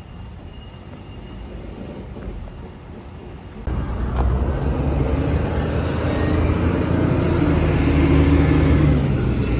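Truck engine running with a low rumble, jumping suddenly louder about four seconds in and swelling further near the end.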